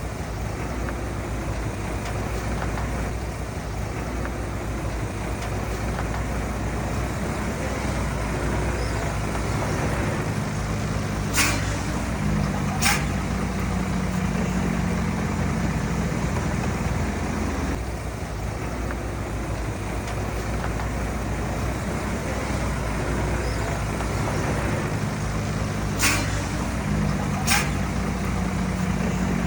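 Heavy diesel earthmoving machinery running steadily, its engine note rising under load twice. Each rise comes with a pair of short, sharp hissing or clanking sounds about a second and a half apart.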